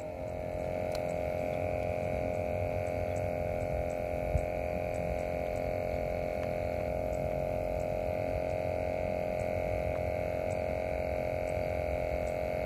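A steady mechanical hum at an even pitch, like a motor running without change. There is one soft knock about four seconds in.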